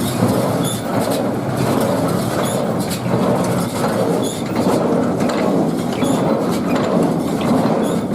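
Welger AP 42 square baler running off a tractor: a steady mechanical clatter with faint regular clicks, the freshly repaired baler under test run.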